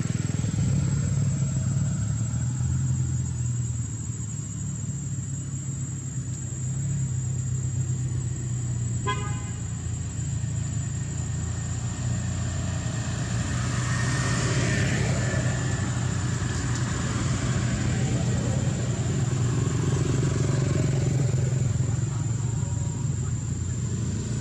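Steady low rumble of motor traffic on a nearby road. A short vehicle horn toot sounds about nine seconds in, and a vehicle passes about halfway through.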